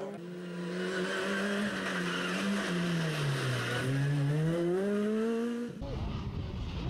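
Ford Fiesta R2 rally car's 1.6-litre four-cylinder engine as the car comes through a corner: the revs sink steadily into the bend, lowest about three and a half seconds in, then climb again as it accelerates out. Near the end it cuts suddenly to a low rumble of wind on the microphone, with the engine faint.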